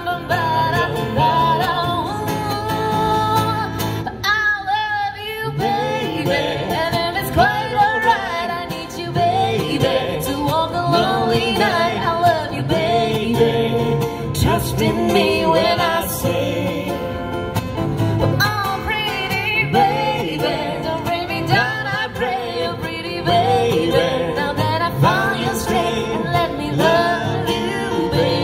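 Live guitar accompaniment with a woman singing a pop song over it. The singing drops out briefly about four seconds in.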